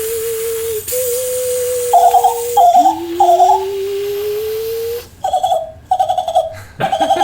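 Two beatboxers imitating a vehicle by mouth together: one holds a steady hummed tone that drops and slides back up about midway, while the other adds a repeated higher pulsing call, in two runs.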